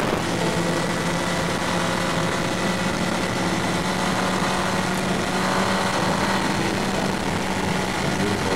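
2002 Yamaha R1's inline-four engine running steadily at road speed from the rider's seat, with wind rushing over the microphone.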